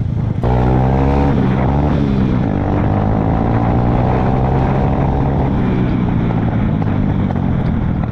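Honda Fan single-cylinder four-stroke motorcycle engine running under way, its pitch rising, falling back about two seconds in and rising again as it is ridden, with wind rushing past. The rider says that on this ride the engine started misfiring and bogging ('dando falta', 'embolando').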